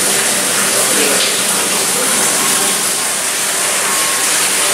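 Steady rush of flowing or splashing water, with faint voices behind it.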